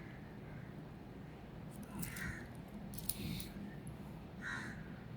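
A few faint clicks from handling a wristwatch, about two and three seconds in, with crow caws in the background.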